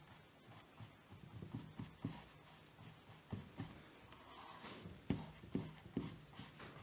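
Paintbrush stroking and dabbing acrylic paint onto canvas: faint, irregular scratchy strokes, with a sharper tap about five seconds in.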